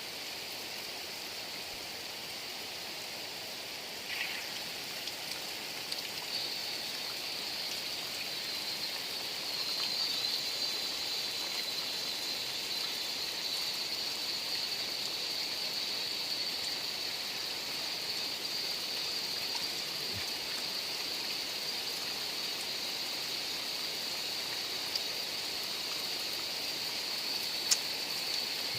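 Heavy rain falling steadily, an even hiss that grows a little louder several seconds in, with a single sharp tap near the end.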